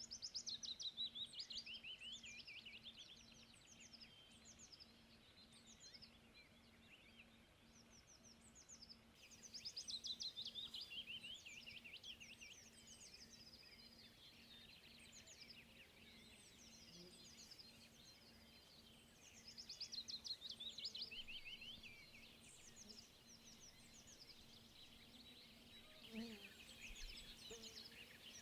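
Small songbirds singing: a descending run of notes lasting about three seconds recurs roughly every ten seconds, with scattered chirps and calls between, over a faint steady low hum.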